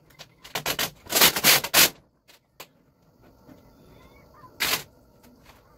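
Sheet of vinyl wrap film rustling as it is lifted and stretched over a car hood: a cluster of rustles from about half a second to two seconds in and one more near the end.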